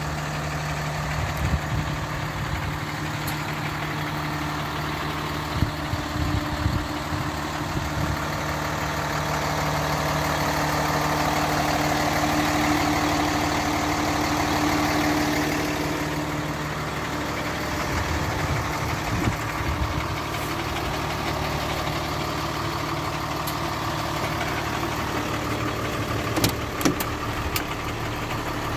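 Mack MD6 truck's Cummins diesel idling with a steady low hum, growing louder for several seconds midway. A few sharp clicks near the end.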